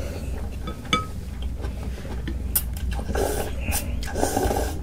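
Close-miked eating of noodles: a light clink of utensil on a dish about a second in, then two short stretches of mouth noise from eating in the second half.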